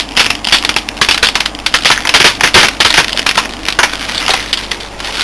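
Cracked glass of a bare LCD panel being prised apart by hand, the broken pieces crackling and crunching in a dense, irregular run of sharp snaps.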